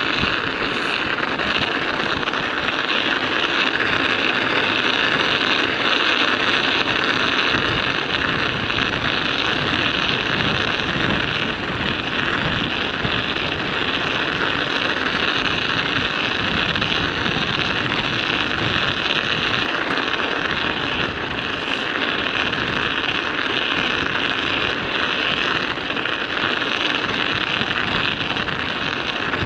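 Studded bicycle tyres rolling over ice and road, the metal studs making a steady clattering hiss, with wind buffeting the microphone.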